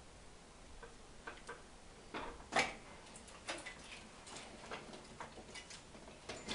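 Irregular faint clicks and light knocks of plastic wiring-harness connectors being unclipped by hand in a car's engine bay, the loudest a little over two and a half seconds in.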